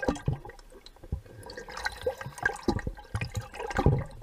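Water bubbling and sloshing around divers just under the surface, irregular gurgles and splashes with a louder one near the end.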